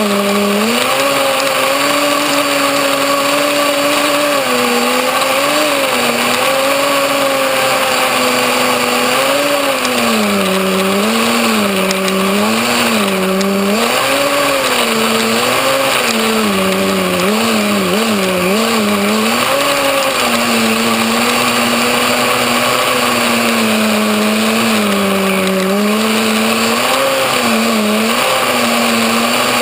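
Kyosho Nitro Blizzard RC snowcat's small two-stroke glow-fuel (nitro) engine running without a break, its pitch rising and falling again and again as the throttle is blipped and eased.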